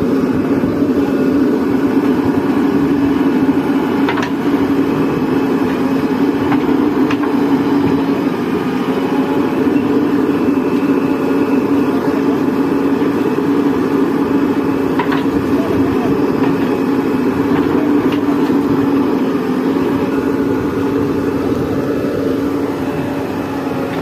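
Diesel engines of a JCB 3DX backhoe loader and a Mahindra 475 DI tractor running steadily at close range, a continuous drone with a few faint clicks.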